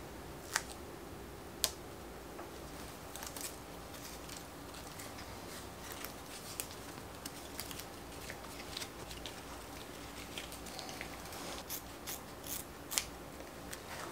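Scissors snipping and the wrap being handled while the end of cloth-like handlebar tape is trimmed on drop bars. There are two sharp clicks near the start, then a scattered run of small snips and ticks, the loudest near the end.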